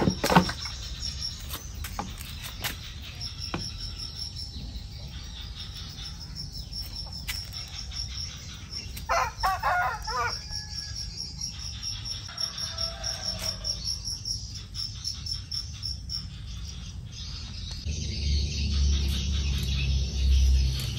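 Outdoor ambience of insects chirping in a rapid, steady pulse, with a bird call about nine seconds in; music with a low beat comes in near the end.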